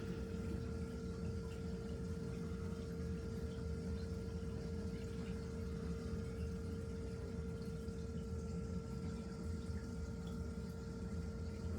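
Reef aquarium pump and water flow running: a steady hum over a low, even rumble of moving water, unchanging throughout.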